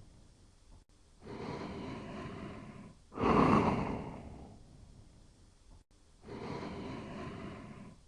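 Slow, quiet snoring of a sleeper: a softer drawn breath of about two seconds, then a louder breath that starts sharply and fades, the cycle repeating about every five seconds.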